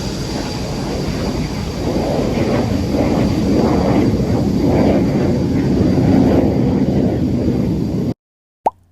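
Boeing 787-8 jet airliner noise: a steady rumbling roar with a thin high whine over it, swelling and easing every second or so, cutting off abruptly about eight seconds in.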